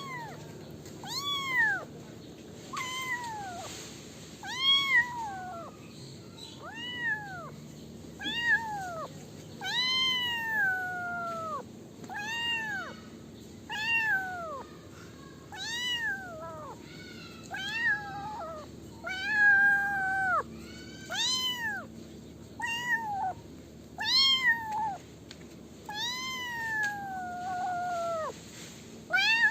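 Kitten meowing over and over: high-pitched meows about one every second and a half, each rising then falling in pitch, some drawn out longer than others.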